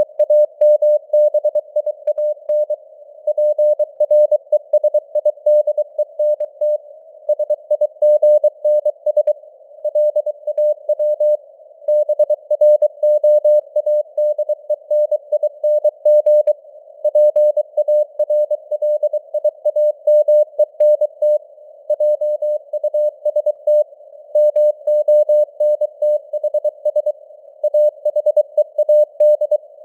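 Morse code sent at 23 words per minute as a single steady tone of about 600 Hz, keyed on and off in rapid dots and dashes with short gaps between words. A faint hiss of simulated radio static sits around the tone, as if heard on a CW receiver.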